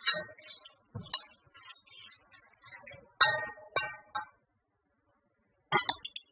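Cooking spoon stirring fried onion and spices in a stainless steel pot, knocking and scraping against the metal: a string of clinks that ring briefly, with a pause of about a second and a half before two last knocks near the end.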